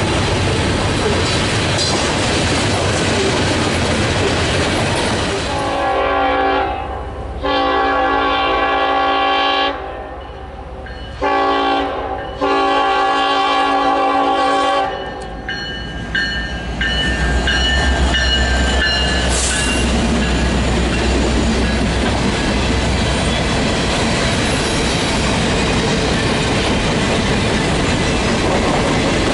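Train's multi-chime air horn sounding a chord in four blasts, long, long, short, long: the standard grade-crossing warning. It sounds over the steady rolling noise of the passing train, and a deep rumble follows later.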